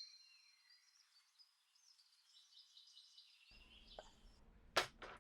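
Faint bird chirps and calls in the background, then two short sharp clicks near the end.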